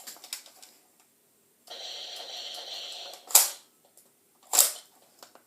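Plastic Buzz Bee Toys Combat M1 toy rifle being worked: a steady rasping sound lasting about a second and a half, then two sharp clacks a little over a second apart.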